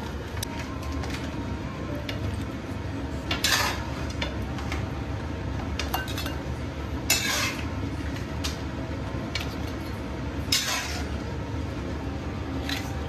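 Metal spatula scraping and clanking against a steel wok as stir-fried crab is scooped out into a bowl, with a handful of sharp clinks a few seconds apart over a steady low hum.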